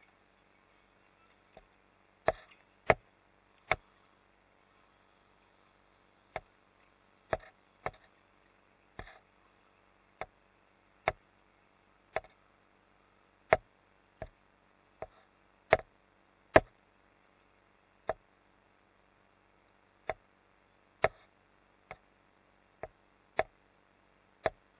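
Sharp, irregular knocks and clicks, roughly one a second at uneven spacing, over a faint steady hiss.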